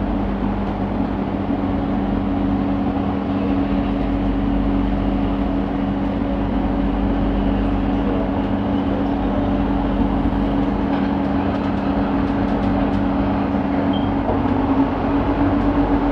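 Inside the cabin of a moving LRT Jabodebek light-rail train: a steady running rumble with a constant two-note electric hum, the upper note bending slightly higher near the end.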